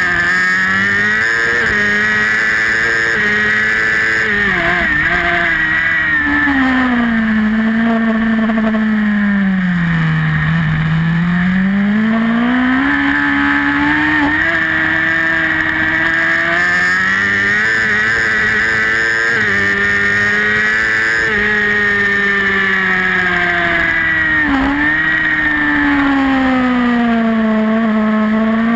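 Superbike engine at full race pace: the revs fall as the bike slows for a corner about ten seconds in, climb back as it accelerates and hold high, then fall again near the end, with a brief sharp dip in pitch around twenty-five seconds in.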